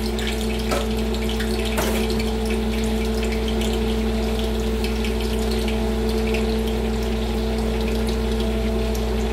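A steady hum with a constant low drone, over faint crackling and bubbling from a stockpot of kare-kare broth simmering with banana heart.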